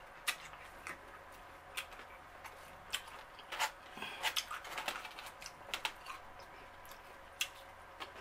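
Black plastic fork clicking and scraping in a foam takeout container as food is picked up: scattered sharp clicks, busiest around the middle.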